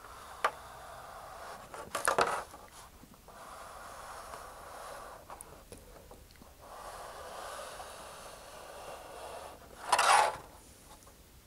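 Pencil scratching along the edge of a thin vacuum-formed plastic sheet, in three long strokes, marking the line to be cut. About ten seconds in, a louder crackling clatter as the plastic sheet is picked up and handled.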